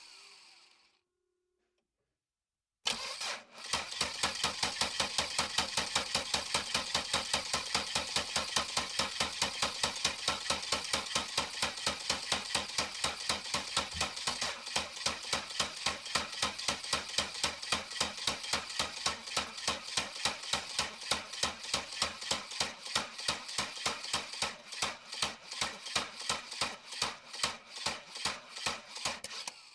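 A car's starter cranking the engine for almost half a minute without it catching: a fast, even chug that slows a little near the end. The engine won't start.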